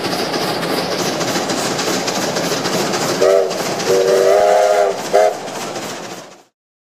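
Steam locomotive running at speed, a steady rush of wheel and exhaust noise. A steam whistle sounds three times about three seconds in: short, long, short. The sound fades away near the end.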